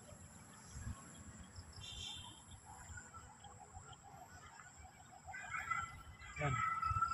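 Small birds chirping and calling against faint outdoor background noise. There is a quick run of high notes about two seconds in, and the calls grow busier near the end.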